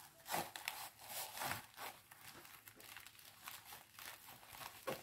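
A diamond painting kit's canvas and packaging being handled, crinkling and rustling in short, irregular strokes.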